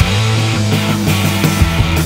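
Blues-rock band playing, with bass and drums coming in under the electric guitar right at the start.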